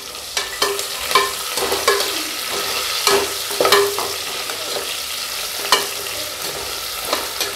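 Steel spoon scraping and clinking repeatedly against the inside of an aluminium pressure cooker while sliced onion is stirred and sautéed in hot oil, over a steady sizzle. Some of the clinks ring briefly.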